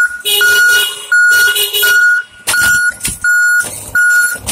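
Forklift's backup alarm beeping at one steady pitch, about three beeps every two seconds. A whir and hum from the machine runs under it in the first two seconds, and a few sharp knocks follow.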